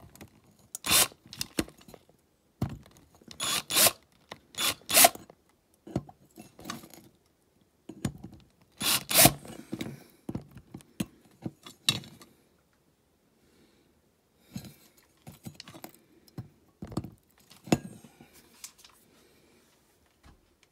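Small hand tools scraping and clicking against a diecast toy van as its grille is pried at: irregular sharp scrapes and taps, the loudest clustered in the first half, with fainter scratching later.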